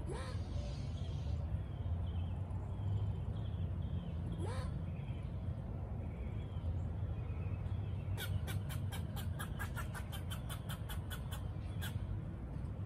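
Steady low outdoor rumble with two quick rising whistle-like calls. Near the end comes a fast run of sharp chattering calls, about five a second for some four seconds, typical of a squirrel's alarm chatter.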